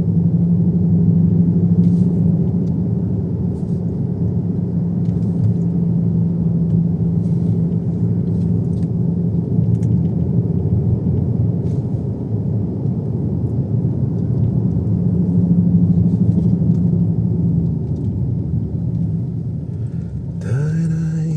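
Car interior noise while driving slowly: a steady low engine drone over road and tyre rumble, easing off slightly midway and swelling again.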